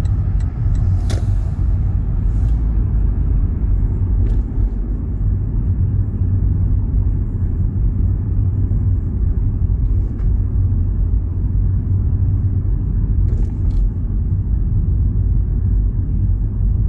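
Steady low rumble of a car being driven, with a few brief clicks about a second in, at four seconds and near thirteen seconds.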